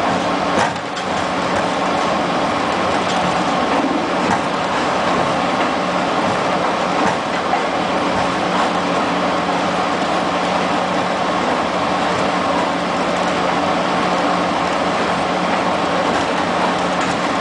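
Alco C424 diesel locomotive's V16 engine running at a steady drone, with the noise of the train rolling along, heard from inside the cab.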